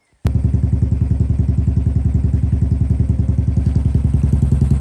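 Motorcycle engine running steadily with an even, rapid exhaust beat. It cuts in abruptly about a quarter second in.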